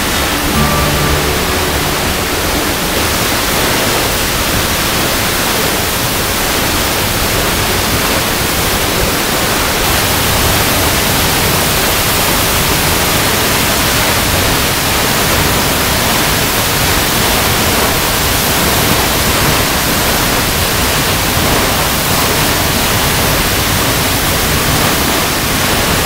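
A tall waterfall plunging into a rock pool: a steady, dense rush of falling water.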